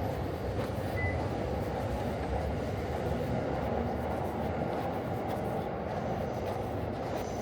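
Steady low rumble of a passing train.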